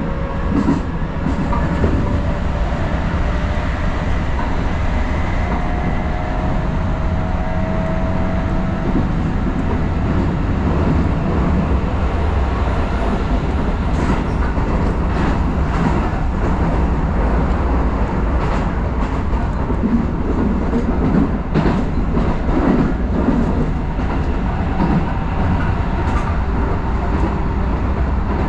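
Keisei Line electric train running along the track: a steady low rumble with the wheels clicking over rail joints at irregular intervals.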